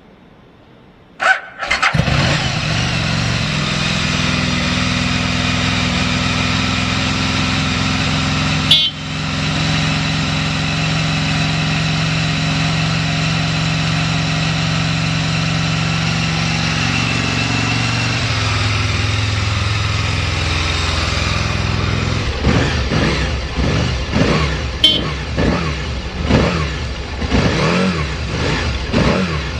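Aprilia 1000R's V-twin engine started on the electric starter, catching on the first press after a brief crank, then idling steadily. In the last several seconds it is revved unevenly with blips of the throttle.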